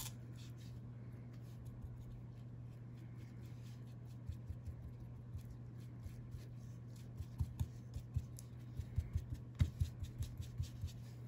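Soft taps and scuffs of a foam ink-blending tool being dabbed and pressed on paper, more frequent in the last few seconds, over a steady low hum.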